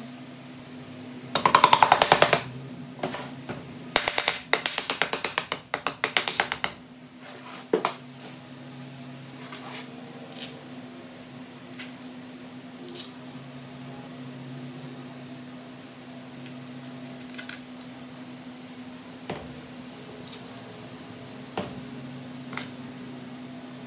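Ratchet wrench clicking rapidly in two runs, one about a second and a half in and a longer one from about four to seven seconds, as bolts are run in on a small engine. After that come scattered light taps of tools and metal parts over a steady low hum.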